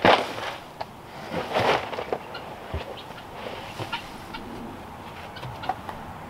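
Wood chips dumped from a plastic tub and scuffed about on a shelter floor: a loud rushing pour at the start and another about a second and a half in, then lighter rustling with scattered small knocks.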